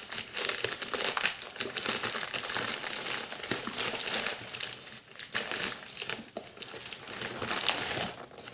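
Package being handled and opened: continuous crinkling and rustling of the packaging, with brief lulls about five seconds in and near the end.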